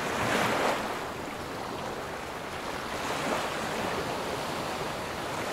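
Sea waves breaking and washing over a shingle beach of rounded pebbles: a continuous rushing surf that swells in the first second, eases, and builds again about three seconds in.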